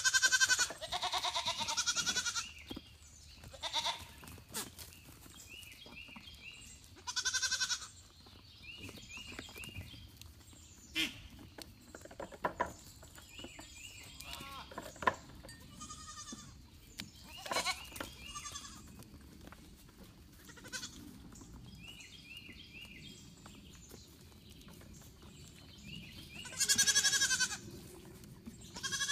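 Goat kids bleating: a handful of loud, wavering bleats of a second or two each, spread through, with quieter calls and short high chirps between.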